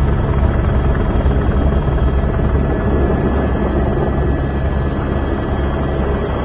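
Helicopter running steadily: a constant low rotor thrum with thin high whining tones over it.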